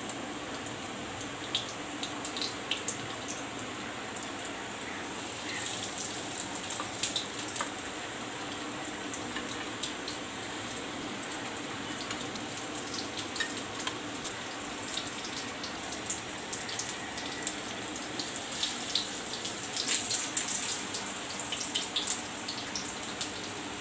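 Egg-and-crumb-coated sabudana and potato cutlets shallow-frying in hot oil in a frying pan on a low flame: a steady sizzle with scattered crackles and pops, busiest about six seconds in and again near the end.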